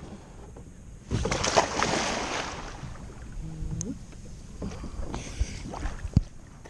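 A person slipping off a sit-on-top kayak into calm seawater: one big splash about a second in, with water washing for a second or so. Then a brief vocal sound, smaller splashes of swimming, and a couple of sharp knocks near the end.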